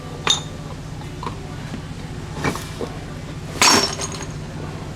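Metal tools clinking on metal: a few sharp, separate clinks with a short high ring, the loudest just under four seconds in, over a steady low hum.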